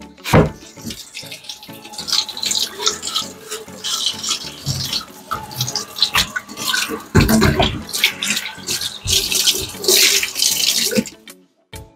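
Water splashing and running during household cleaning, with irregular knocks and clatter; it cuts off suddenly near the end.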